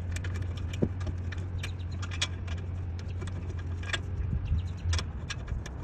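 Irregular sharp metallic clicks and clinks of hand tools on the brake caliper bracket bolts, over a steady low hum that stops about five seconds in.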